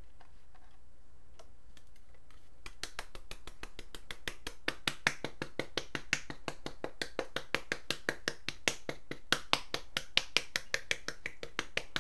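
Small shaker of powdered sugar being shaken over a cake: a fast, regular run of sharp clicks, about five or six a second, starting after a few sparse clicks about three seconds in and growing louder.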